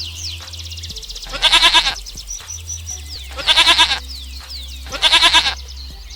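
Goat bleating three times, each call about half a second to a second long with a quavering pitch, over continuous small birds chirping.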